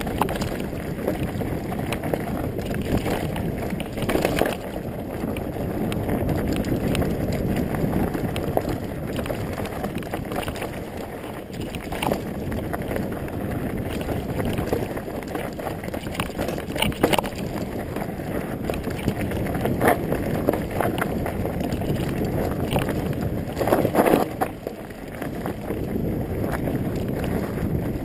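Specialized Stumpjumper mountain bike riding fast down a dirt singletrack: a steady rush of wind on the microphone and tyre rumble over the ground, with the bike rattling and several sharp knocks as it hits bumps.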